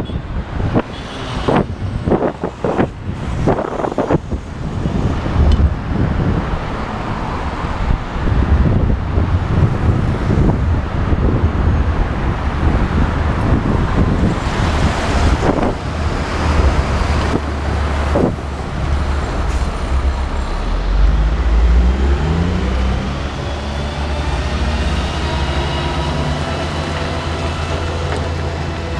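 Road traffic heard up close: the steady rumble of passing motor vehicles, with a run of knocks in the first few seconds. Near the end, an engine rises in pitch as a vehicle accelerates.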